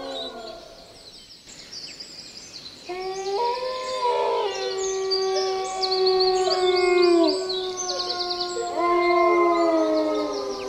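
Animals howling: one howl dies away early on, then after a short gap several long, drawn-out howls overlap at different pitches, each sliding down at its end, and another starts near the end. Small birds trill high above them.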